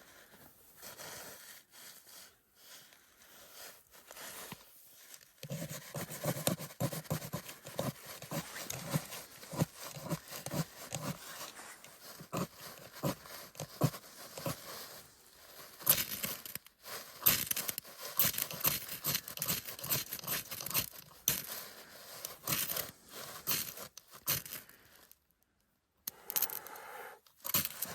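Close, repeated scratchy scraping and tearing strokes, many short ones in quick succession, of tinder and kindling being worked by hand to relight a campfire. There is a brief dead silence a few seconds before the end.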